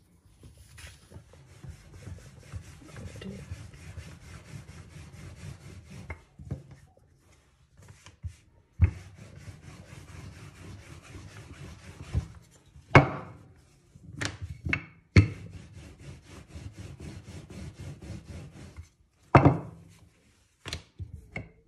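Rolling pin rolling out thin samosa pastry dough: a steady rubbing, broken by several sharp knocks.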